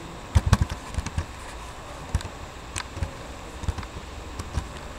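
Scattered clicks of a computer mouse and keyboard: a quick run of clicks about half a second in, then single clicks spread through the rest, over a steady background hiss.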